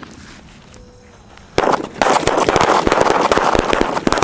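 Ground firecrackers bursting: a short lull with a few faint pops, a sharp bang about a second and a half in, then a dense run of rapid crackling bangs.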